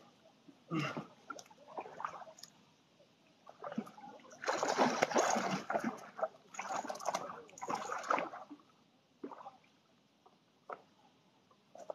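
Large hooked fish splashing and thrashing at the water's surface close to the bank, in irregular bursts, the loudest and longest about four to six seconds in.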